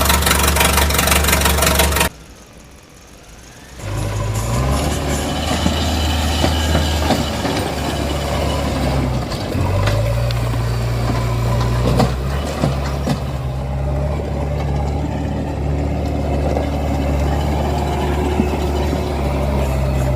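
A loud hiss-like noise for about two seconds, then, after a short quieter gap, an engine running steadily with its low hum stepping up and down in pitch a few times.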